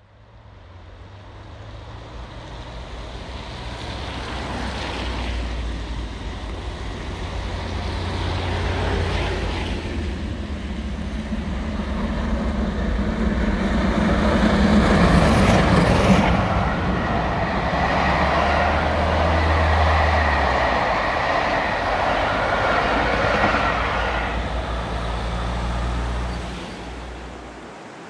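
A charter train passing close by, growing louder to a peak about halfway through and then dying away near the end, with a steady low hum under the rumble of the train.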